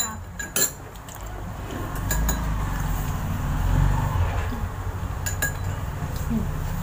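Metal spoon clinking against a bowl a few times, sharpest right at the start and again half a second later, with more light clinks about five seconds in. A low rumble rises and fades in the middle.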